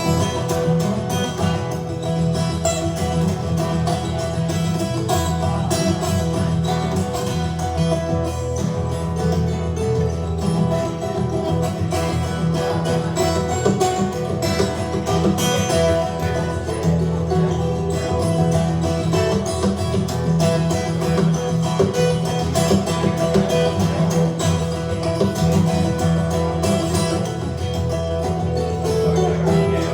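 Guitar music played live, with plucked strings ringing steadily.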